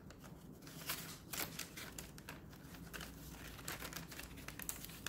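Paper rustling as the loose sheets and paper popcorn-bag pocket of a handmade junk journal are handled: a string of short, irregular crinkles.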